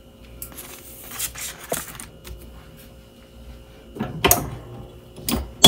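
Paper rustling and crinkling as a sheet of heat transfer paper and a Teflon sheet are handled and smoothed onto a T-shirt on a heat press, followed by a few sharp clicks and knocks in the last couple of seconds, the last the loudest.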